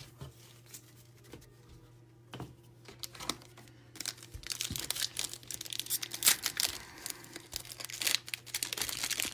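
Foil wrapper of a football trading-card pack crinkling and tearing as it is ripped open. It starts with a few faint clicks, and the crackling rustle turns busy about four and a half seconds in.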